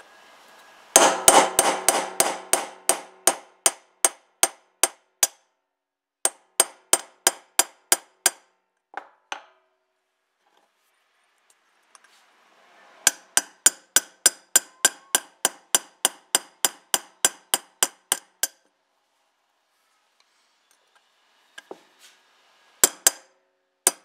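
Hammer striking metal in quick, even runs of about four blows a second, each blow ringing briefly, with pauses between the runs and a few last blows near the end.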